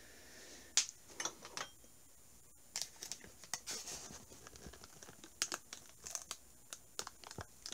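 Scattered light clicks and taps with a faint rustle: hands picking up and handling a hard plastic graded-item holder.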